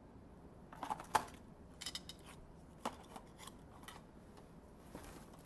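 Irregular plastic clicks and clacks of a stickerless 3x3 speed cube being handled and turned, in small scattered groups with the loudest about a second in.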